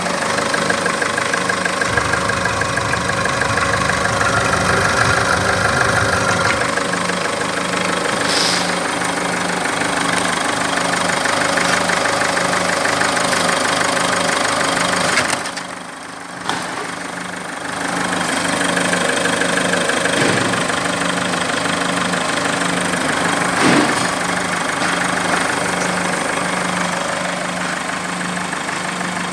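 Mazda 5's 2.0-litre RF four-cylinder common-rail turbodiesel idling steadily. The sound turns briefly quieter and duller about halfway through.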